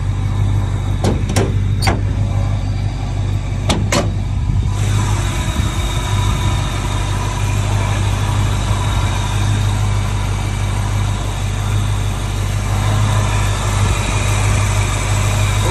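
A 1965 Ford Mustang's 289 V8, fitted with an RV cam and glass-pack mufflers, idling steadily while warm. A few sharp clicks and knocks in the first four seconds are the hood being unlatched and raised, and the engine sounds brighter from about five seconds in, once the hood is up.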